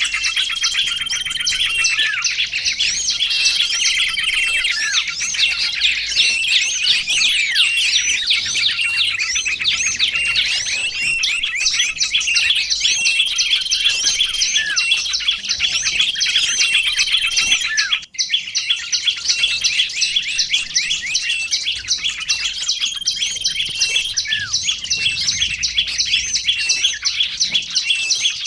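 Dense, continuous chirping of several small songbirds, many rapid high calls and short trills overlapping. The chorus breaks off for an instant about two-thirds of the way through, then resumes.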